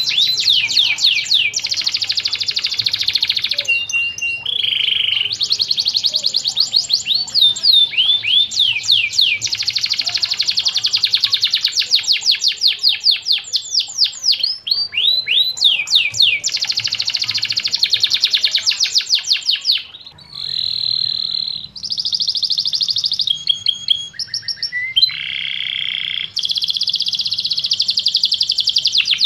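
Domestic canary singing long rolling trills: runs of very fast repeated sweeps, broken by a few short pauses and brief changes of phrase. A short steady whistle comes about twenty seconds in.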